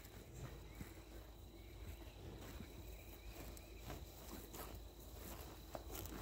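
Cattle grazing: quiet, irregular tearing and crunching of grass as they crop and chew, growing busier toward the end, over a steady high insect drone.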